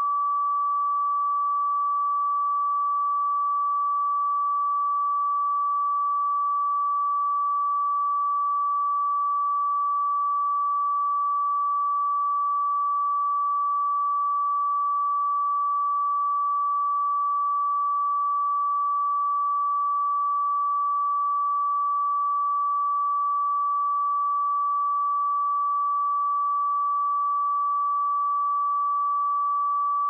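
Steady pure sine-wave test tone at 1152 Hz, a single unwavering pitch with no harmonics, held at constant level.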